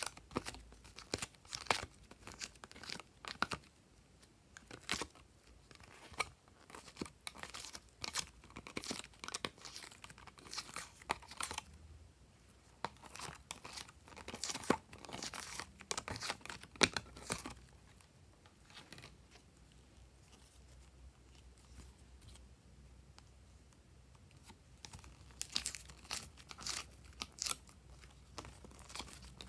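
Glossy slime being squeezed and stretched by hand, making irregular sticky clicks, pops and crackles. The clicking thins out and goes quiet for several seconds past the middle, then picks up again.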